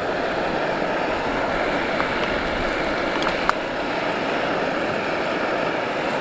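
Portable gas camping stove burning with a steady rushing hiss, with a couple of faint clicks partway through.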